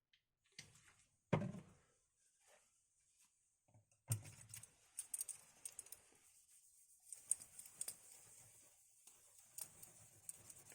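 Faint handling sounds of old thermal paste being wiped off a laptop heatsink with isopropyl alcohol: a single knock about a second in, then irregular rubbing with small clicks from about four seconds on.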